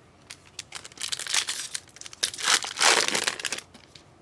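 A trading-card pack's wrapper being torn open and crinkled by hand, in two loud bouts of crackling.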